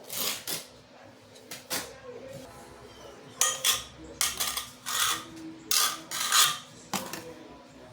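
A metal trowel scraping and clinking as it works thin-set mortar: a series of short scrapes, most of them in the second half.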